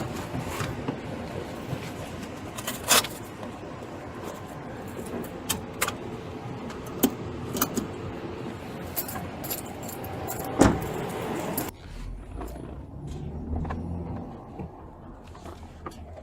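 Small metal items jangling and clinking amid rubbing and rustling, with a sharp knock about ten and a half seconds in; the background noise drops off abruptly about a second later.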